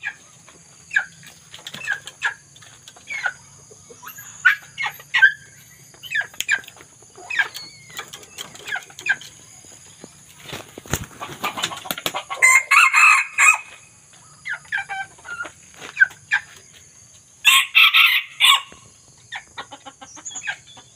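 Young red junglefowl calling: short clucks about once a second, and two louder crows of about a second each, one in the middle and one near the end.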